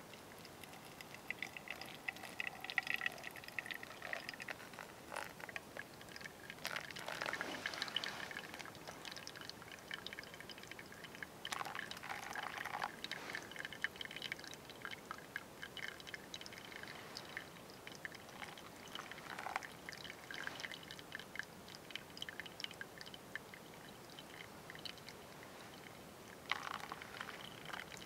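Hot water poured from a metal mug onto coffee grounds in a paper filter, in several separate pours, with dripping from the filter between them.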